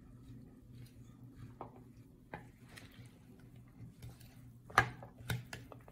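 A metal spoon stirring chickpea salad in a bowl: soft scrapes and light clicks of the spoon against the bowl, with a sharper click near the end.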